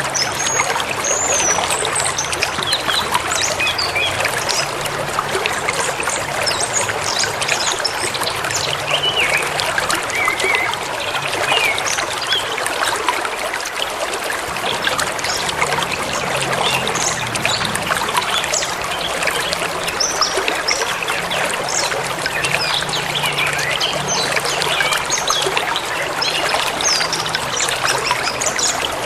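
Forest river running steadily over its bed, with small birds chirping and calling here and there above the water.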